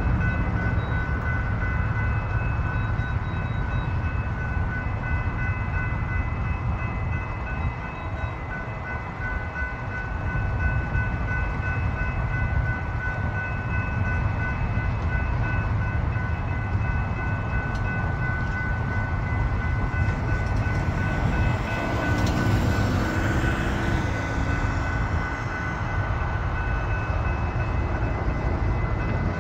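Railroad grade-crossing warning bells ringing steadily over a low rumble. About 21 seconds in, a Metrolink Arrow train passes through the crossing, the noise swelling for a few seconds.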